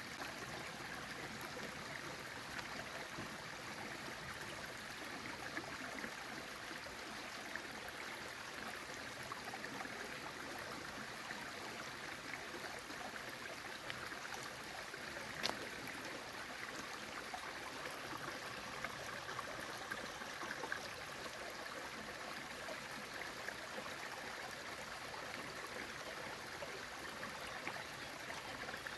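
Water of the Cascade du Bayehon waterfall and its stream, running and splashing steadily. One sharp click comes about halfway through.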